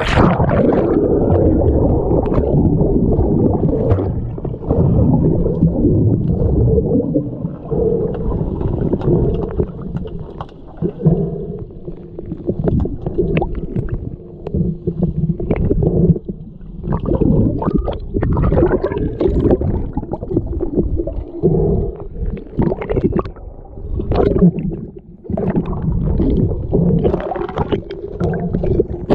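Muffled underwater noise of an underwater hockey game in play: a low, churning rumble of water and bubbles stirred by swimmers, with scattered sharp clacks throughout.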